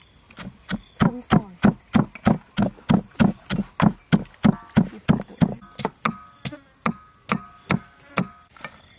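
Wooden pestle pounding sliced lemongrass in a mortar: a steady run of dull thuds, about three a second, that stops near the end.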